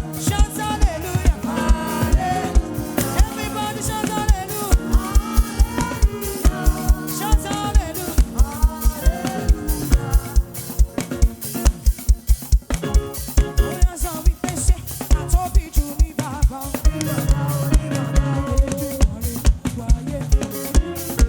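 Live gospel praise band music. A drum kit keeps a steady kick-drum beat under a sung melody.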